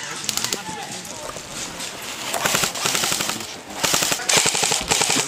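Airsoft rifle firing rapid full-auto bursts, a fast rattle of shots. There is a short burst about half a second in, then two long bursts in the second half.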